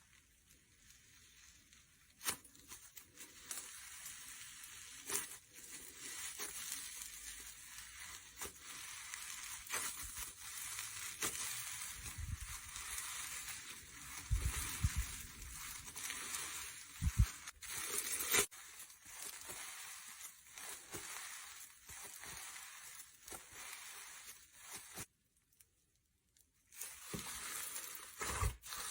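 Slime being squeezed, stretched and pressed by hand, giving a steady sticky crackle with many sharp pops and clicks. It breaks off for about two seconds near the end.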